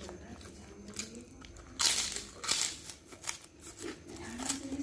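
Paper-and-banana-leaf food wrapping crinkling and rustling as chicken satay is picked up from it by hand, with a brief louder rustle about two seconds in.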